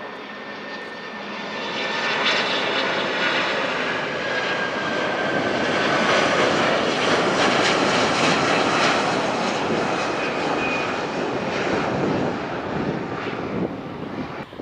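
Jet airliner passing close: an Airbus A330-243F freighter's Rolls-Royce Trent 700 turbofans. The rumble builds over a couple of seconds, stays loud through the middle with a whine sliding down in pitch, and fades near the end.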